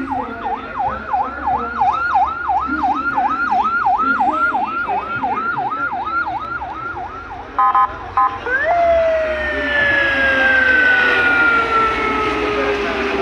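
Emergency vehicle siren on a fast yelp, about three and a half sweeps a second, that breaks off about seven and a half seconds in with a few short horn-like blasts, then rises once and winds down in a long, slowly falling wail.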